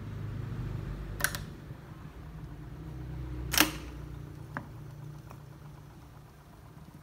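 TEAC A-6010 reel-to-reel tape deck having its transport push-buttons operated: a few sharp mechanical clicks, a double one just after a second in and the loudest about three and a half seconds in, over a low steady hum.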